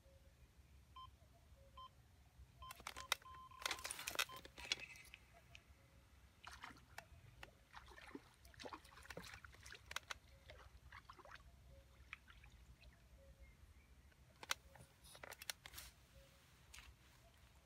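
Electronic bite alarm beeping a few times, short bleeps at one pitch, as a fish takes the bait. This is followed by clicks and rattles of the rod and reel being handled and wound while a small fish is played in, with light splashing from the fish at the surface.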